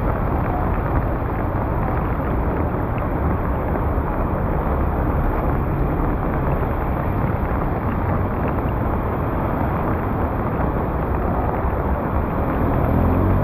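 Steady, loud rush of floodwater pouring into a clogged street drain, with a deep low rumble and no distinct splashes or knocks.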